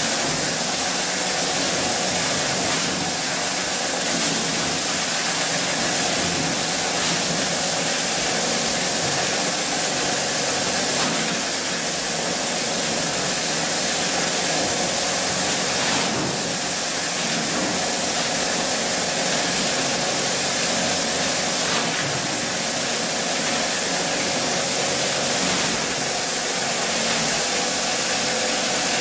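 Plastic crate grinder (granulator) running under load, its electric-motor-driven rotor chopping injection-moulded Pepsi crates fed into the hopper into regrind: a loud, steady, dense grinding noise with a faint steady hum.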